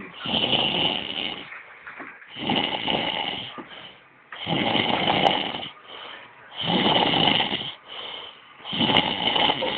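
Snoring: five snores about two seconds apart, each lasting about a second.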